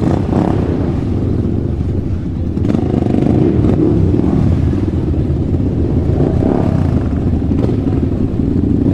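A motor vehicle running with a steady low rumble.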